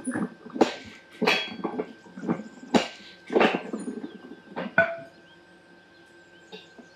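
Manual lever-press juicer crushing pomegranate halves: a run of irregular clanks and squelches for about five seconds, one near the end ringing briefly like struck metal, then quieter.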